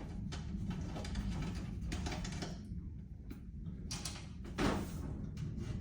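Clattering and scraping of fabricated sheet-metal firewall block-off plates being handled and fitted against the car's firewall, with one louder knock about four and a half seconds in, over a steady low hum.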